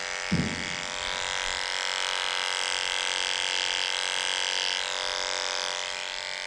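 Electric dog-grooming clippers running steadily with a buzzing hum as the blade trims the hair on a schnauzer puppy's ear, a little louder in the middle while the blade works through the hair. A short voice sound just after the start.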